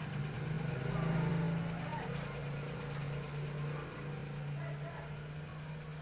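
A steady low mechanical hum, engine-like, that fades a little near the end, with faint voices in the background during the first couple of seconds.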